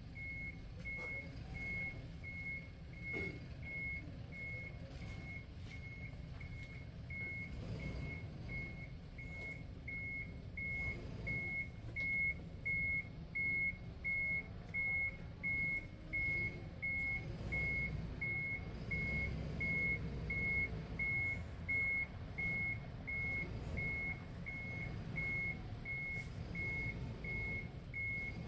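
A truck's reversing alarm beeping steadily, about three beeps every two seconds, over the low rumble of the truck's engine as it backs up.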